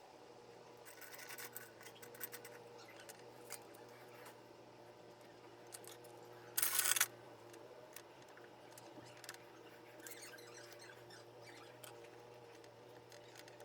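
Small handling sounds of crafting work: scattered light clicks, scrapes and snips, with a brief hiss lasting about half a second near the middle, over a faint steady hum.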